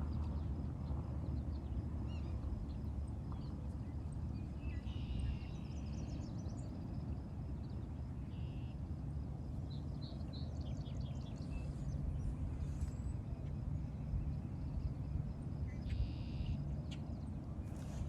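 Birds calling now and then, short chirps and a few repeated brief higher calls, over a steady low rumble of outdoor shore ambience.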